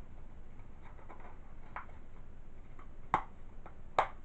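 Plastic Blu-ray/DVD case being handled: faint rustles and light taps, then two sharp clicks, about three seconds in and near the end.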